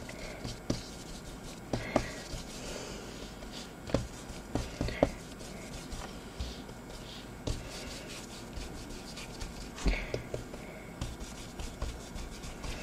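Paintbrush strokes scrubbing acrylic paint across a sheet of paper, a soft scratchy brushing, with a few short light knocks scattered through it.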